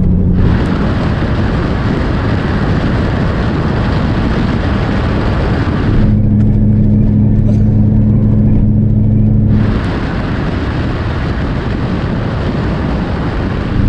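Corvette cruising at steady highway speed. Inside the cabin its engine drones steadily; this alternates with stretches of loud wind and tyre rush picked up outside near the front wheel, from about half a second in to about 6 s and again from about 10 s on.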